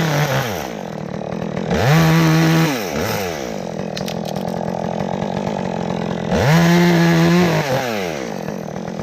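Chainsaw held at full throttle twice, each time for about a second, dropping back to idle in between: the saw making crippler cuts, partial cuts that weaken a branch so it hangs down out of the way.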